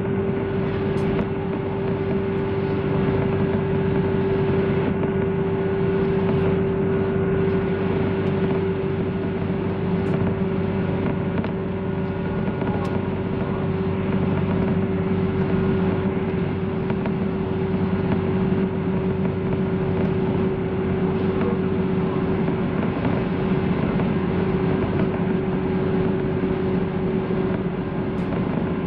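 Aboard a 185 series electric multiple unit: a steady rumble with a constant hum, unchanged throughout.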